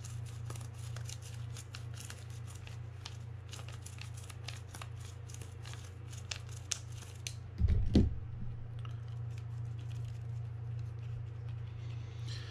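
Scratchy hand wiping and scrubbing of fishing reel drag parts: quick rubbing strokes for most of the first seven seconds, then a short low thump about eight seconds in, over a steady low hum.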